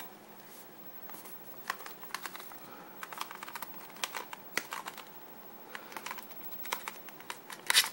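Small scattered clicks and taps of fingers and fingernails working at the end flap of a small cardboard box, easing it open without tearing it, with a quick run of clicks near the end as it comes free.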